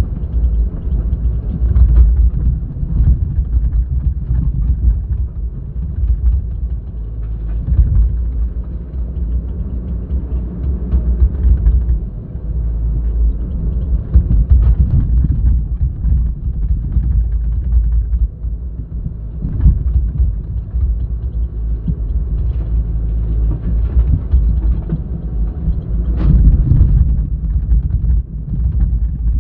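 Heavy diesel engines of an excavator and dump truck running with a deep rumble, with a few short knocks now and then.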